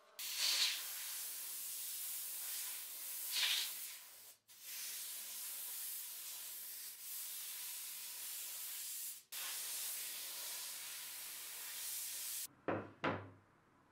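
Compressed-air spray gun spraying a finish coat onto a wooden board. It gives a steady hiss in three long passes, broken by brief pauses about four and nine seconds in, then two short bursts near the end.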